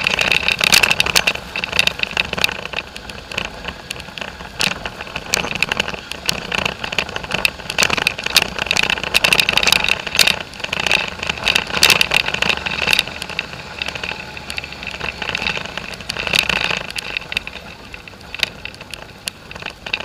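Polaris four-wheeler engine running under way on a rough dirt trail, with frequent sharp clicks and rattles; it gets quieter in the last few seconds.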